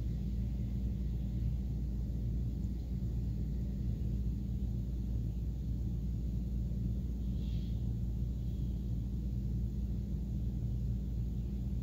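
Steady low hum made of several fixed low tones over a low rumble, even in level throughout. A faint short hiss sounds about seven and a half seconds in.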